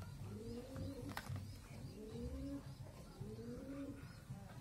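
A dove cooing, repeating the same rise-and-fall phrase about once a second. One sharp plastic click about a second in as the toy car's chassis is handled against its body.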